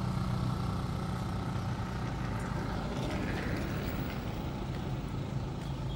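Motorbike engine running with a steady low hum that holds the same pitch throughout.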